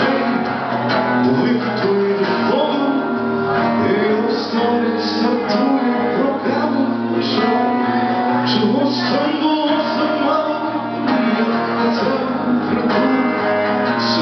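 Live band music led by a strummed acoustic guitar, with a wavering melody line over it.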